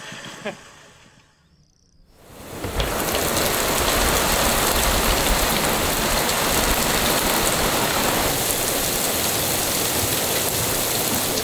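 Heavy monsoon downpour pouring onto the sea, a steady dense hiss of rain that fades in about two seconds in after a brief near-silence.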